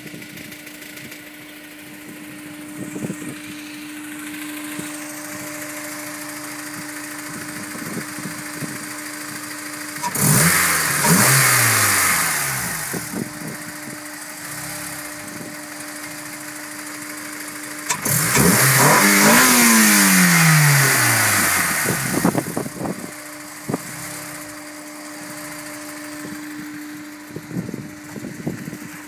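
Car engine warmed up to operating temperature, idling steadily. It is revved twice, about ten seconds in and again about eighteen seconds in, and each time the revs fall slowly back to idle.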